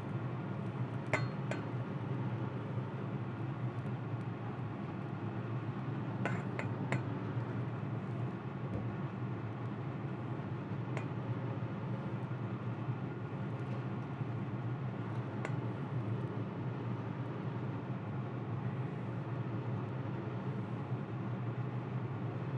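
Metal kitchen tongs clinking now and then against oyster shells and a wire cooling rack, a handful of light clicks spread out over a steady low hum from the griddle's gas burners running on high.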